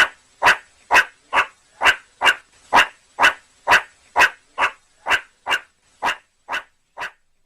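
A dog barking over and over at an even pace, about two barks a second, the barks growing fainter over the last few seconds.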